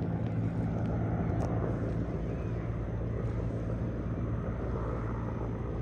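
Military helicopter flying, a steady low drone of its engines and rotor with a constant hum and no change in pitch.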